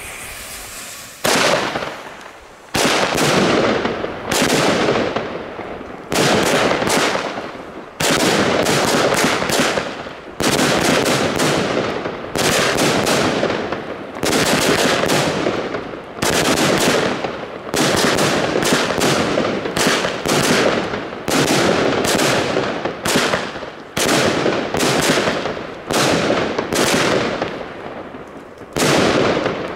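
Consumer fireworks battery firing shot after shot, about one loud bang a second, each burst's crackle trailing off before the next. The first second is quieter, with the fuse burning before the first shot.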